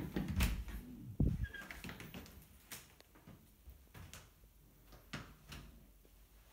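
An interior panel door being pushed open, with heavy low thumps in the first second and a half, then scattered soft knocks and steps in a small carpeted room.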